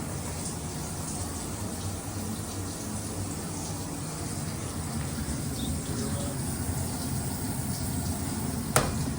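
Steady rushing of water, with one sharp click near the end.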